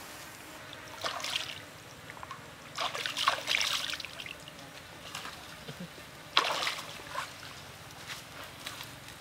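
Marinated octopus sizzling on a wire grill over hot charcoal, with crackling, spattering bursts about a second in, around three to four seconds in, and again at six and a half seconds as juices drip onto the coals.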